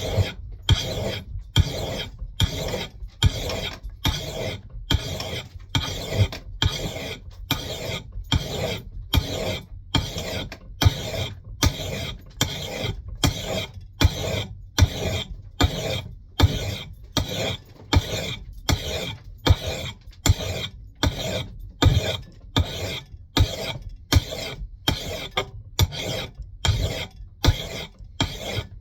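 A hand file rasping across the steel bevel of an axe head in steady, even strokes, about three every two seconds, while the edge is ground toward a thin 15 to 20 degree bevel.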